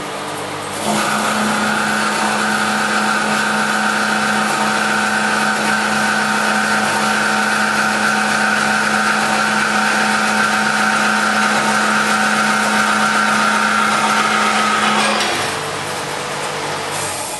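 Metal-cutting bandsaw with a 2 hp motor driving a worm gearbox, cutting through a clamped metal workpiece. About a second in, the blade bites into the metal and the sound gets louder, with a steady hum and a higher whine. About 15 seconds in it cuts through and drops back to the quieter sound of the blade running free.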